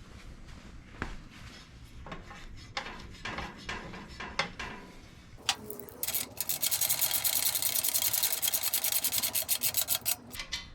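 Scattered clicks and knocks of a steel bolt and motorcycle frame parts being handled. About six seconds in comes a fast, even run of rasping clicks lasting about four seconds, typical of a socket ratchet driving an M8 flange bolt into the subframe's upper mount.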